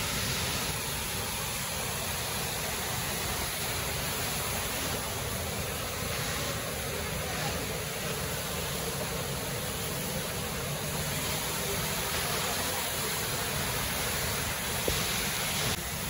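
Waterfall rushing steadily: a constant, even noise with no breaks or changes.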